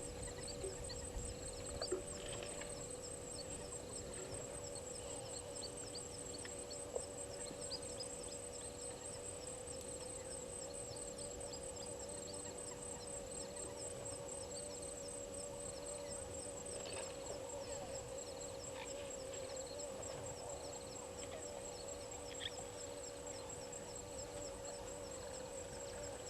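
A steady chorus of insects and frogs at a waterhole: high, fast-pulsing insect trills over a lower, continuous wavering frog chorus. A few short bird calls come through here and there.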